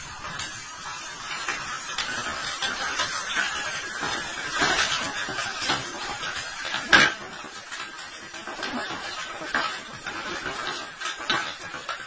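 Radio-controlled scale truck driving over loose gravel: its small electric drive whirring while the tyres crunch and click over the stones, with one sharp knock about seven seconds in.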